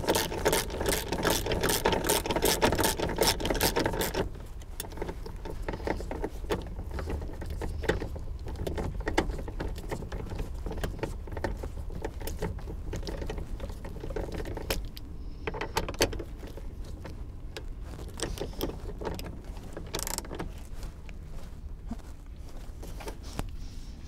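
Socket ratchet clicking rapidly as it runs in a seat-belt anchor bolt, stopping about four seconds in. After that there are only scattered light clicks over a low steady rumble.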